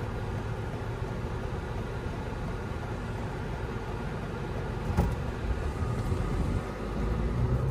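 Road and tire noise inside the cabin of a 2020 Toyota RAV4 TRD Off-Road running on Toyo Open Country AT3 all-terrain tires, heard as a steady low hum with the AC off and the windows closed. A single click comes about five seconds in.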